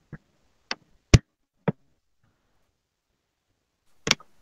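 A few short, sharp clicks, the loudest about a second in, then a gap of about two seconds and one more click near the end.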